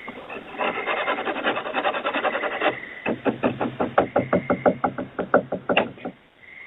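Scratching and knocking on a back door. First a dense scraping for about two seconds, then a fast run of sharp strokes, about six a second, for nearly three seconds.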